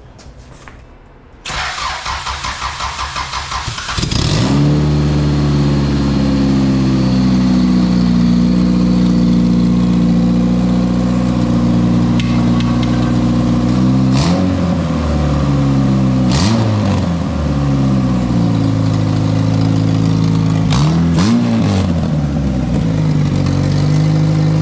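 Starter cranks the 1999 Honda Civic's four-cylinder engine for about two and a half seconds until it catches, then it settles into a steady idle on its freshly rebuilt cylinder head. Three or four short throttle blips rise and fall in the second half.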